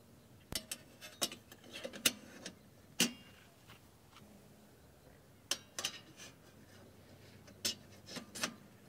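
A bracket and stand being fitted onto a camping table's side rail: a scattered series of light clicks and knocks, the sharpest about two and three seconds in, with more clustered later on.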